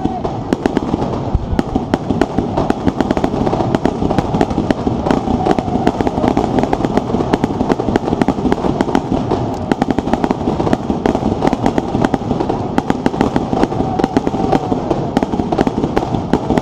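Fireworks going off in a dense, continuous barrage: many rapid sharp cracks and pops over a steady rumble.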